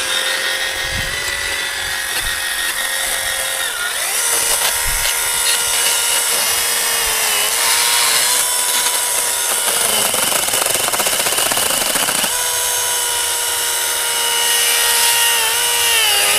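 Electric chainsaw running and cutting into brush and small tree limbs, its motor whine dipping in pitch several times as the chain loads up in the wood.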